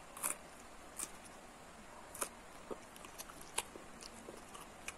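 A person eating something and chewing it: faint, scattered crisp clicks and mouth smacks, about one a second.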